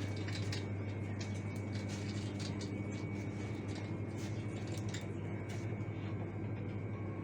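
Grocery store background: a steady low hum from the store's machinery, with scattered light clicks and rustles of goods being handled.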